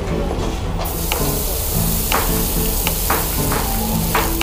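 Meat sizzling in a frying pan, starting suddenly about a second in, with a few sharp clicks from the spatula and pan. Background music with a bass line runs underneath.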